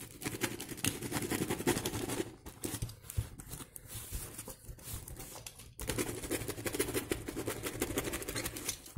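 Box cutter slitting the plastic wrapping and tape of a parcel, with the plastic crinkling and rustling as it is handled, in irregular scratchy strokes with a short lull about six seconds in.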